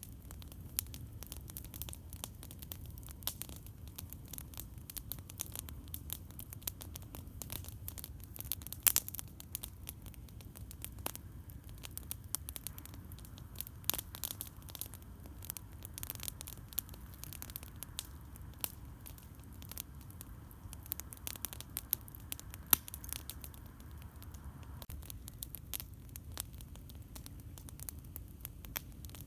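Campfire crackling: frequent, irregular sharp pops and snaps, a few louder than the rest, over a low steady rumble.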